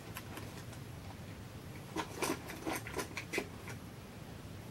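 Quiet room with a few soft, short clicks and rustles about two to three and a half seconds in, from makeup products being handled and sorted through.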